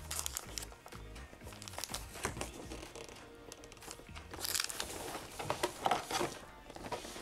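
Background music with cardboard crinkling and tearing as perforated advent calendar doors are torn open by hand.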